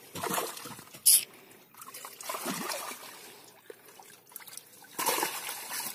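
Water splashing and trickling inside a mosquito net held in shallow river water as hands scoop through it for trapped fish, with a sharp splash about a second in and another splashy stretch near the end.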